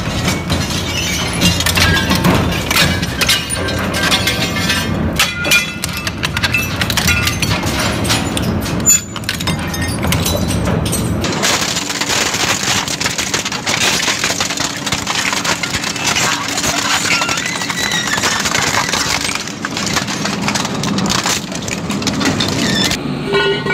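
Twin-shaft metal shredder's rotating hooked cutter discs crushing and tearing metal scrap, a dense run of cracking, snapping and grinding. About halfway the crunching turns thinner and hissier as lighter sheet metal is torn.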